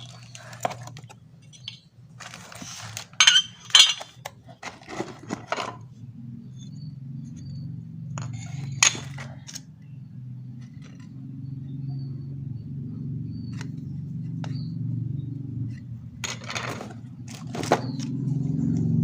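Small hard clicks and clinks of the angle grinder and its parts being handled. From about six seconds in, a steady low hum starts and slowly grows louder.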